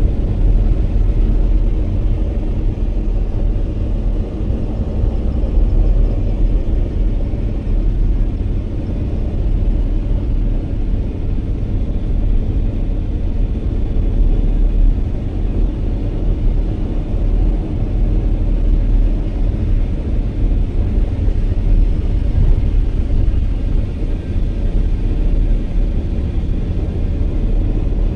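Steady low rumble of a moving vehicle, its road and engine noise even throughout.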